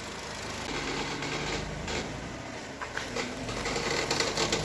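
Chevrolet Cobalt's B15D2 1.5-litre engine running with a fast mechanical rattling clatter that grows louder toward the end. The owner traces the clatter to a failed belt tensioner pulley assembly clogged with oily dirt.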